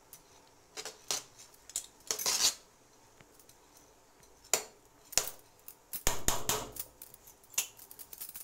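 Steel spoon scraping and clinking against a large aluminium pot as par-boiled rice is spread into an even layer for dum biryani. The strokes are scattered and irregular, with a longer run of scraping about six seconds in.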